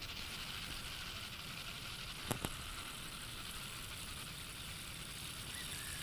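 Shimano SLX baitcasting reel being cranked steadily to retrieve the lure, a soft, even whirring hiss, with two quick clicks about two and a half seconds in.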